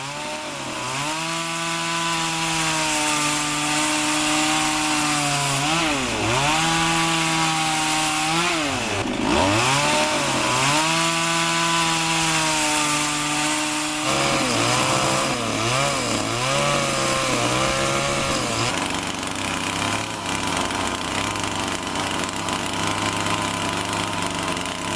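Chainsaw cutting wood while carving a sculpture. The engine runs at high speed under load and twice drops in pitch and picks up again as the throttle is eased and reopened. In the second half its speed wavers up and down repeatedly.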